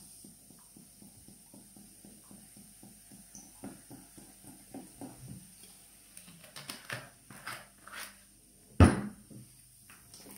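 Sparkling water glugging from a plastic bottle as it is poured into a steel pot of cold soup. A sharp knock about nine seconds in is the loudest sound, followed by a wooden spoon stirring in the pot.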